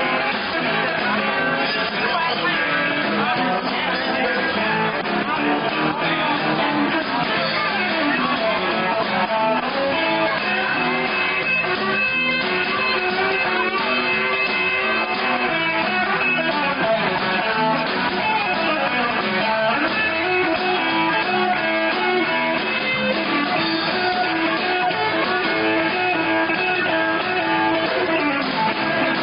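Live rock and roll band playing, with electric guitars to the fore.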